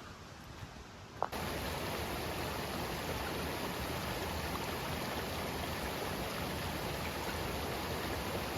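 Steady rushing noise of running water, which cuts in suddenly a little over a second in after a quieter, faint background.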